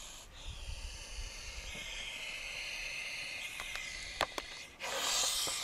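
Sonora gophersnake hissing defensively, air forced past its epiglottis in a steady hiss, with a louder, harsher blast of hiss about five seconds in. This is the threat hiss of a gophersnake cornered and about to be handled.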